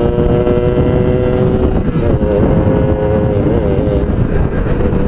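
Suzuki GS Tornado two-stroke motorcycle engine running under way, heard over heavy wind rush. Its steady pitch wavers briefly about two seconds in and again about three and a half seconds in.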